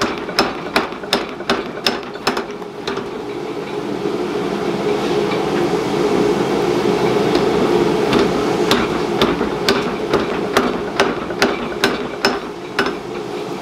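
Power hammer striking a glowing billet of stacked broken-sword tiles, forge welding it, in repeated blows about two to three a second. The machine runs between the blows, and there are fewer strikes in the middle.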